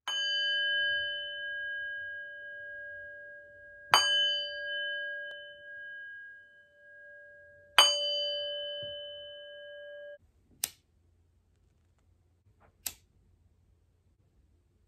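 A metal singing bowl struck three times, about four seconds apart, each strike ringing on with several steady tones and fading slowly. The ringing cuts off suddenly about ten seconds in. Two short clicks follow in near silence.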